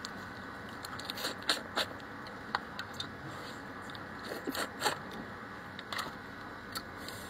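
Eating raw blue swimmer crab by hand: a string of separate sharp clicks and crackles as the shell is pulled apart and the meat is bitten and chewed, with wet mouth sounds.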